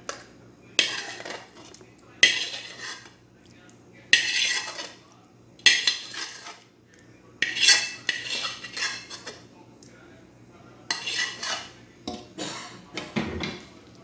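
Metal spoon scraping and clinking against a metal frying pan and cooking pot as fried chicken tikka masala is scooped out onto rice, in about seven separate scrapes, each starting with a sharp clink and trailing off.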